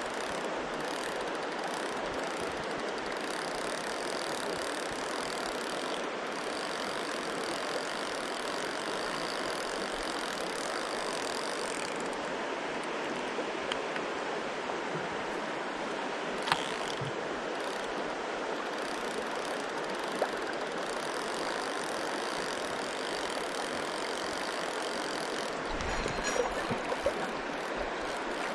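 Mountain stream water rushing steadily, with a few faint clicks, one about 16 seconds in and one about 20 seconds in.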